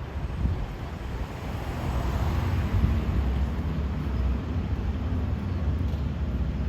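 Low, steady rumble of a fire engine with wind buffeting the microphone, and a brief hiss of noise about two seconds in; no siren is sounding.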